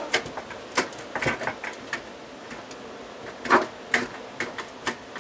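Knockout in a thin sheet-metal LED light-fixture housing being rocked back and forth by hand to fatigue it out: irregular light metallic clicks and taps, with louder ones about a second in and again around three and a half to four seconds.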